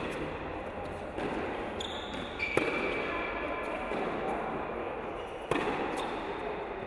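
Tennis ball struck by rackets in a rally: two sharp hits about three seconds apart, echoing in an indoor hall.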